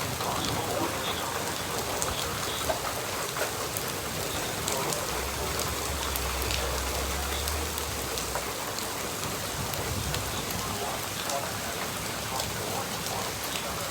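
Heavy rain falling steadily, with scattered sharp drop hits. A low rumble comes in about five seconds in and fades out about three seconds later.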